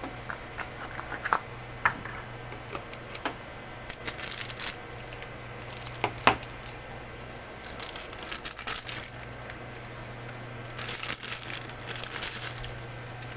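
Thin plastic wrapping crinkling and tearing in irregular bursts as a pet-fountain filter is unwrapped, with clicks of plastic parts being handled and one sharp click about six seconds in. A low steady hum runs underneath.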